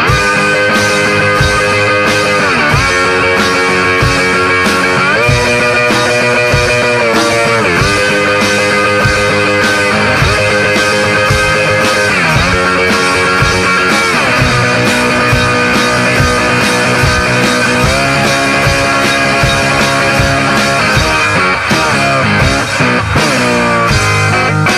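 Rock music: a steady beat under guitar notes that slide up and down in pitch.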